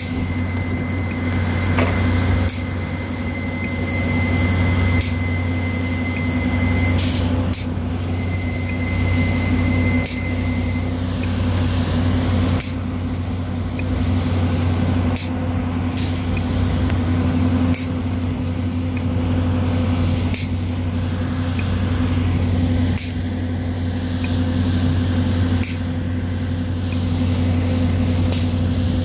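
Volvo EC210B LC excavator's diesel engine and hydraulics running steadily under load with a deep hum while it digs and lifts a bucket of sand. A high steady whine sounds over it for about the first ten seconds, and sharp clicks recur every two or three seconds in the second half.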